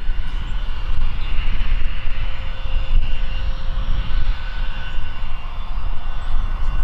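IAI Gulfstream G150 business jet taxiing, its twin turbofan engines at low power giving a steady whine of several held tones over a low rumble.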